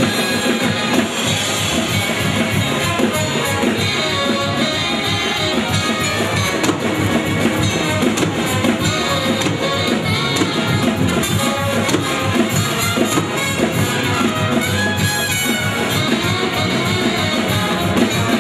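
Lively instrumental music with drums and a steady beat.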